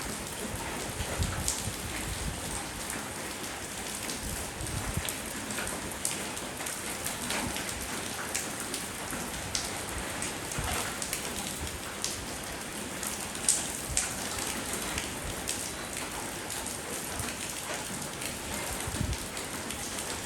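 Steady rainfall, with many scattered individual drops standing out and a few louder drips about two thirds of the way through.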